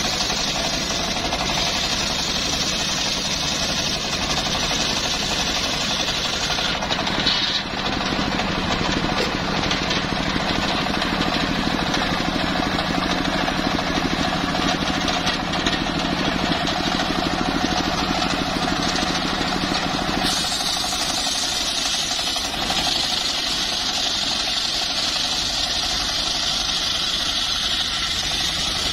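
Engine-driven homemade circular sawmill ripping a teak log lengthwise: the engine running steadily under load with the blade cutting through the wood. The sound changes abruptly in tone partway through.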